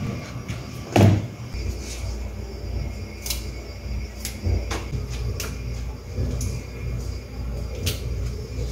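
A single knock about a second in, then a steady low rumble under scattered sharp clicks and snaps as water spinach stems are broken and handled by hand at a kitchen sink.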